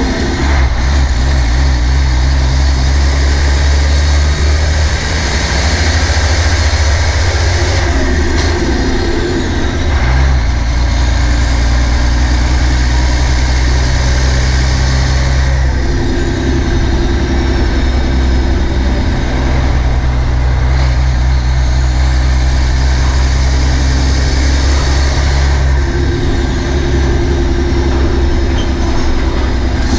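Nissan Diesel KG48U truck crane's 12.5-litre PF6TB turbocharged, intercooled diesel engine running while the crane drives along the road, its note dropping and picking up again several times.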